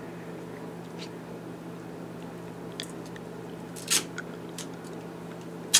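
Duct tape being pulled off the roll and torn in a few short rips, the strongest about four seconds in, with a sharp click near the end, over a steady low hum.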